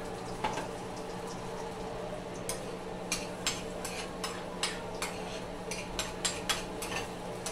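A utensil scraping and tapping in a nonstick frying pan as eggs are scrambled, over a low steady sizzle. The strokes start about two and a half seconds in and come irregularly, two or three a second.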